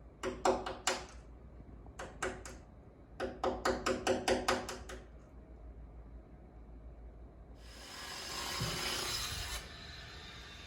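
Building renovation construction noise: quick hammer-like knocks in three bursts, each strike with a ringing pitch, then about two seconds of loud hissing noise that drops to a softer hiss.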